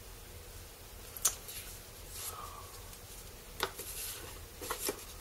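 Paper and card being handled: a sharp tap about a second in, then soft rustling and crinkling of a thin sheet of painted paper, with a few light taps near the end.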